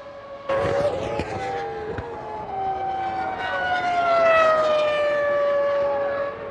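Formula One cars' 3-litre V10 engines passing at high revs, several high-pitched engine notes overlapping. The main note falls slowly in pitch as a car goes by, with a sudden jump in sound about half a second in.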